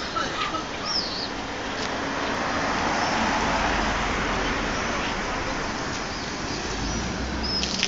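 Outdoor rushing noise of wind and road traffic, swelling about three seconds in and easing off again, with a couple of short bird chirps.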